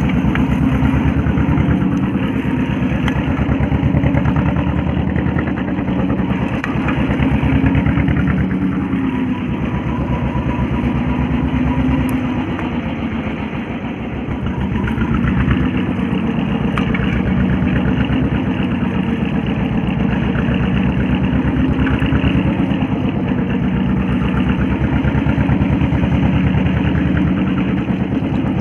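A fishing boat's engine running steadily at sea, its speed easing down and picking back up a little around the middle.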